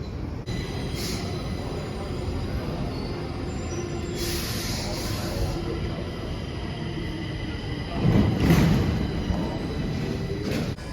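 Steady low mechanical rumble with faint high whining tones over it. A hiss comes in about four seconds in, and the sound swells loudest around eight seconds in before settling.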